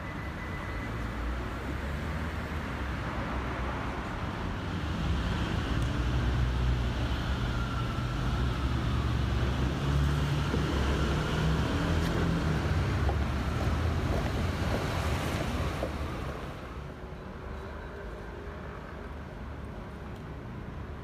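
Low rumble of a passing vehicle that swells over several seconds, stays loud for about ten seconds, then falls away about three-quarters of the way through.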